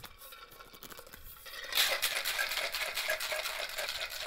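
Ice and liquid rattling hard inside an Elevated Craft copper cocktail shaker being shaken, a fast steady rattle that starts a little under two seconds in after quieter handling of the closed shaker.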